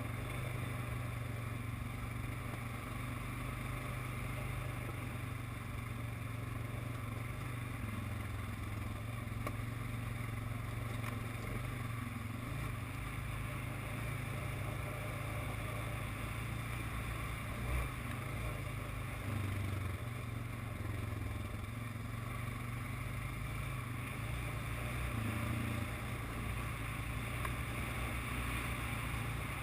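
ATV engine running at a steady, low drone while riding a dirt trail, with a brief knock about two-thirds of the way through.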